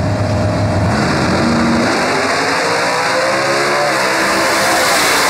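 Two drag-race cars launching side by side and accelerating hard down the strip, their engines loud and rising in pitch as they pull away.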